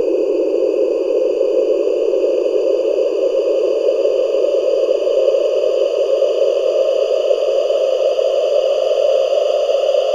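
A loud, steady electronic drone that rises slowly and evenly in pitch, with no breaks.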